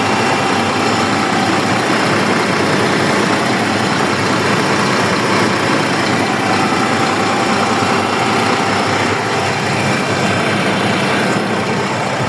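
Diesel engine of a Quester CDE 280 concrete mixer truck running steadily at idle. The engine is overheating, with the lower radiator hose hot but the upper radiator still cold: the coolant is not circulating through the radiator, which turned out to be a thermostat stuck shut.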